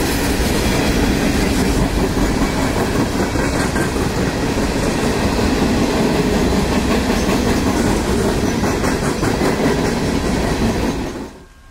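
CSX freight train of hopper cars rolling past close by: a steady rumble with the clickety-clack of wheels over the rail joints. It cuts off abruptly near the end.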